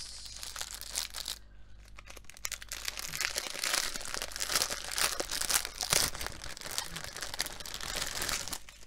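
Plastic packaging of a diamond painting kit crinkling as the bags of diamond drills are handled and opened: a dense run of crackles, loudest a little past the middle.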